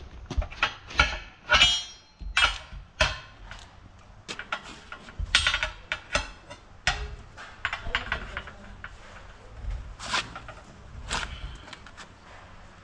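Steel tire levers knocking and clanking against the steel wheel rim of a tractor rear tire as the bead is pried off, in many irregular knocks, several of them ringing briefly.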